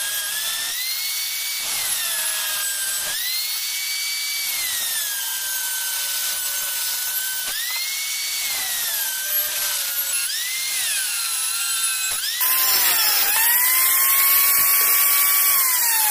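Angle grinder with a cut-off disc cutting into a steel motorcycle brake disc: the motor's whine drops in pitch each time the disc bites into the metal and rises again when it eases off, several times over. Near the end it runs free and louder, then is switched off and winds down in a falling whine.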